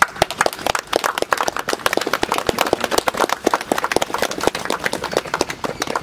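A small group of people clapping: many quick, irregular hand claps that run on steadily.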